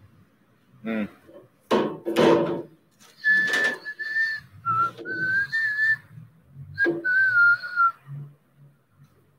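A person whistling a short tune in a few phrases, with thin, pure notes that waver up and down. It starts about three seconds in, after a couple of short voice sounds.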